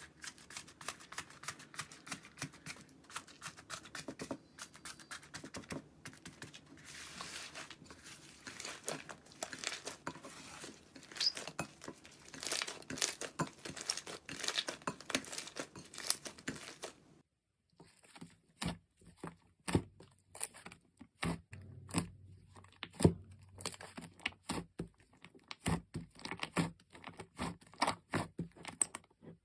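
Slime being squeezed and stretched by hand, making dense crackling and popping. After a cut about two thirds of the way in, there are sharper, separate crunches and pops, several a second.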